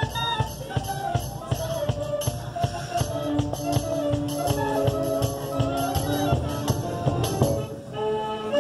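High school marching band playing its field show: wind melody and held chords over a steady drum beat, with the front ensemble's percussion. The sound dips briefly near the end as a new chord comes in.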